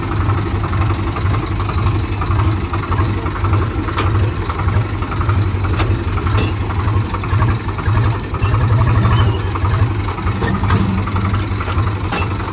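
JCB 3DX backhoe loader's diesel engine running steadily with a low, rapid throb, with a few sharp knocks.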